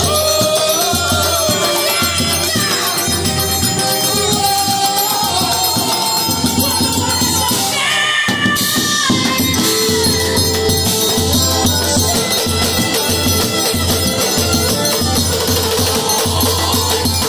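Live forró music from a junina trio: an accordion melody over regular low zabumba drum beats and a steady high triangle or shaker rhythm. The bass beats drop out briefly about eight seconds in, then resume.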